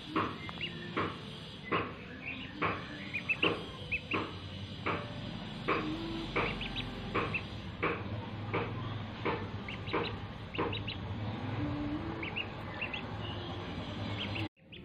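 Ducklings peeping: short high calls repeated about once or twice a second.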